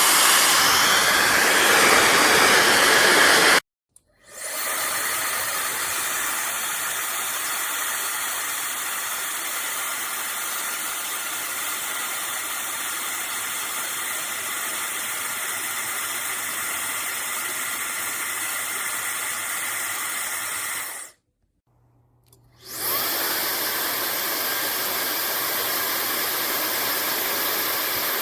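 AINA 2000WE high-speed hair dryer blowing steadily. It stops abruptly twice, for about a second each time, and starts up again quickly, running quieter after the first restart.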